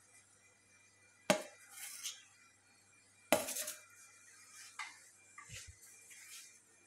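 Stainless steel pan and serving spoon knocking on a metal platter as rice is emptied out: two sharp metallic clanks about two seconds apart, then lighter clinks and scrapes of a spoon against metal.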